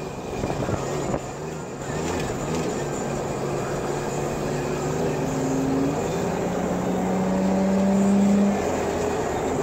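Lifted Toyota 4Runner's engine running as it drives through sand, the engine note climbing steadily from about four seconds in, loudest near the end, then dropping off.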